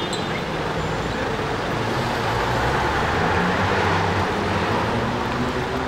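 Road traffic at a city intersection: cars passing with engine hum and tyre noise. It swells in the middle and eases off near the end.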